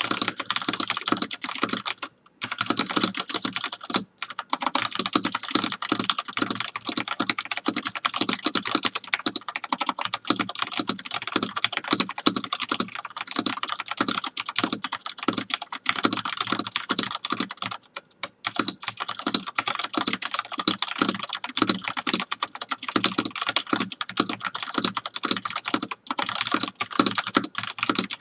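Fast touch-typing on a Filco Majestouch 2 Tenkeyless mechanical keyboard with thick PBT keycaps: a rapid, continuous stream of keystrokes at about 111 words per minute, broken by a few brief pauses.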